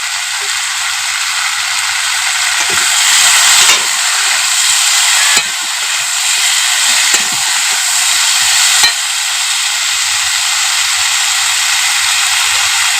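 Food sizzling steadily in hot oil in a pan as it is stirred, with three short knocks along the way.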